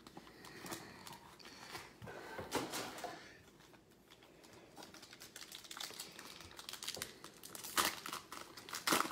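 Cardboard box and foil-wrapped trading-card packs being handled, crinkling and rustling with scattered clicks, and a couple of sharp rips near the end as a foil pack is torn open.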